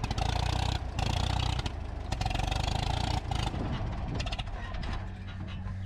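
Farmall M tractor's four-cylinder gasoline engine running unevenly, cutting out briefly several times, the sign of it running out of gas.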